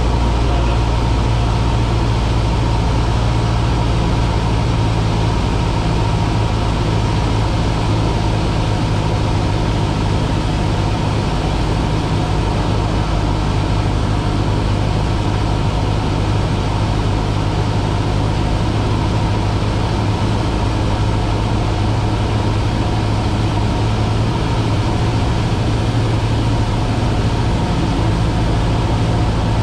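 Steady drone of a Cessna's piston engine and propeller in flight, holding an even pitch throughout.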